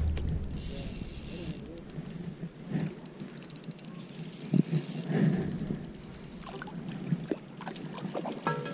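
A hooked trout splashing at the surface as it is reeled in, with a few short louder splashes and the fast ticking of the fishing reel. Reed stems rustle and brush close by.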